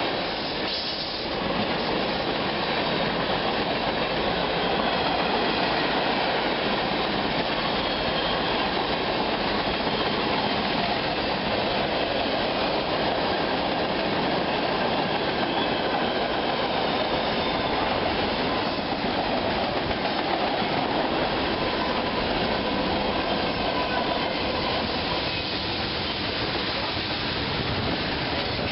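A train rolling past close by: a steady, loud rumble of wheels on the rails, with faint squealing tones from the wheels.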